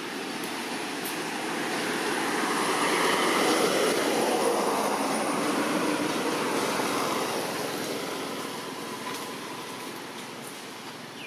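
A vehicle passing by: a broad rushing noise that swells over the first few seconds, peaks about four seconds in, then slowly fades away.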